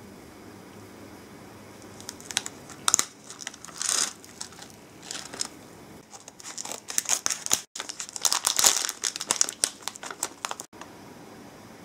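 Clear plastic bag crinkling and rustling in the hands as the candy box is slid out of it, in irregular crackly bursts that start about two seconds in, grow busiest and loudest in the second half, and stop shortly before the end.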